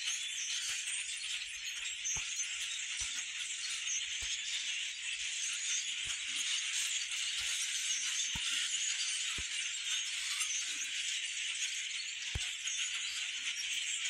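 A large flock of small songbirds calling together: a dense, steady din of many overlapping high-pitched chirps.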